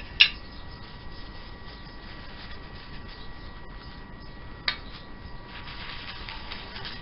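Hampshire Sheen High Gloss wax being rubbed onto a turned elm dish: a steady rubbing hiss over a faint steady hum, with a sharp click just after the start and another about two-thirds of the way through.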